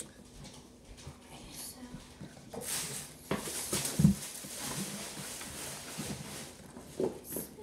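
Metal spoon scooping and scraping borax powder inside a cardboard box, with the box rustling and a few light knocks.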